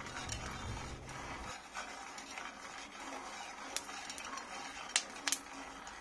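Peanuts being roasted in a nonstick frying pan and stirred with wooden chopsticks: a faint rustle and scrape of the nuts sliding over the pan, with a few sharp clicks of nuts or chopsticks knocking the pan in the second half.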